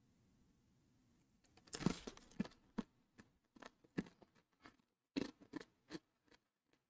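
Faint, crisp crunching of a person chewing a Paqui One Chip Challenge tortilla chip, irregular crunches a few times a second, starting nearly two seconds in.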